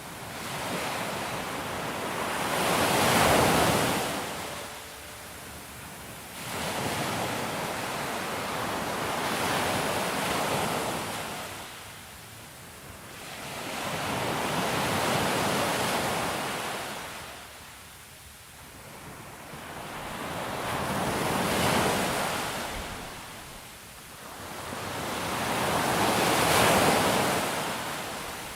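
Ocean surf on a shore: five waves break and wash back in slow swells about five to six seconds apart.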